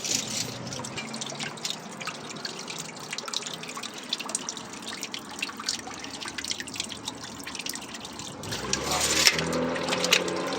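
Water trickling and dripping from a corroded, leaking water main, with many small splashes. Near the end a low motor hum starts and gets louder.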